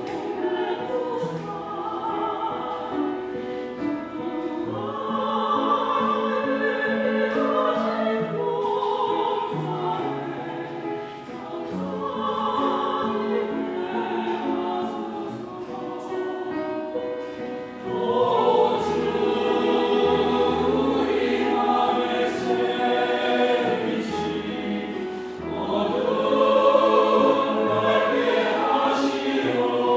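Church choir singing a hymn, growing louder about eighteen seconds in.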